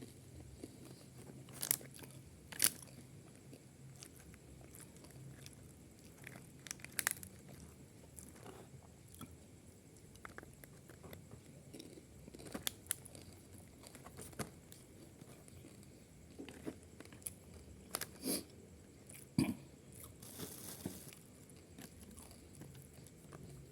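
A person eating close to the microphone: chewing with scattered crunchy bites and sharp mouth clicks every few seconds, and a brief rustle near the end.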